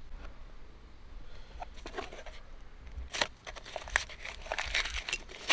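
Tools and brake parts being handled during a motorcycle brake-pad change: irregular clicks, knocks and scraping, busiest in the last second or two, with a sharp knock at the very end.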